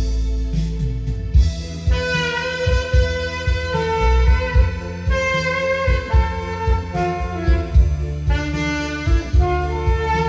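Saxophone playing a slow trot melody in long held notes over a keyboard accompaniment with bass and drums. The saxophone comes in about two seconds in, after a short stretch of backing alone.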